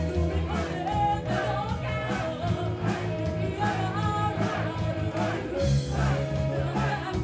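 Live rock band: a woman singing lead over drum kit and electric bass.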